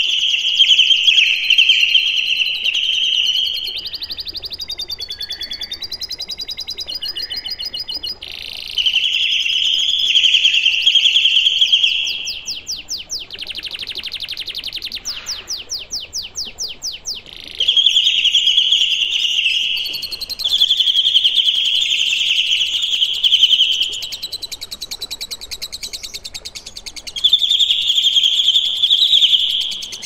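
Caged kinoi songbird singing: loud, shrill phrases of two to three seconds alternate with quieter stretches of fast, rapidly repeated notes, with a run of quick sweeping notes about halfway through.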